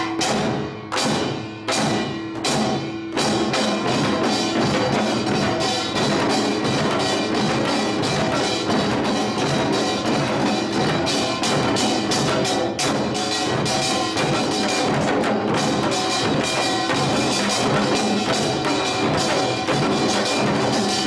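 Samulnori percussion ensemble playing: small gong, large gong and Korean drums. A few separate strikes in the first three seconds, then a fast, dense rhythm.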